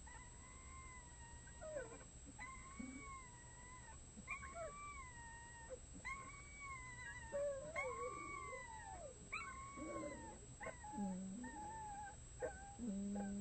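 Month-old red wolf pups howling: a string of thin, high, wavering howls, each a second or two long, rising and falling in pitch. Lower, deeper calls join in during the second half.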